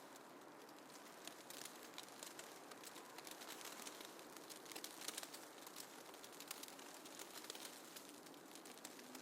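Faint snowfall ambience: a soft hiss with many light, irregular crackling ticks, like snow or ice grains pattering.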